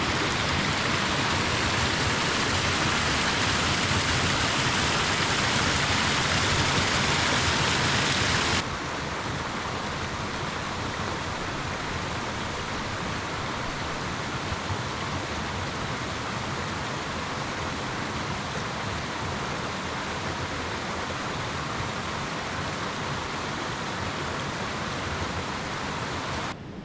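Steady rush of a waterfall and stream, an even hiss of running water; about eight and a half seconds in it drops suddenly to a quieter, duller rush.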